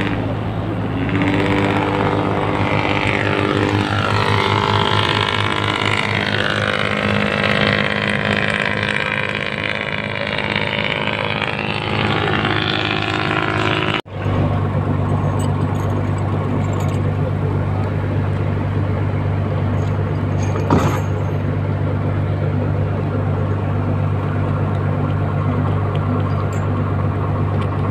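Fishing boat engine running with a steady low hum. Over the first half a higher whine slides up and down in pitch. After a brief cut about halfway the engine hum runs steadily, with one sharp click later on.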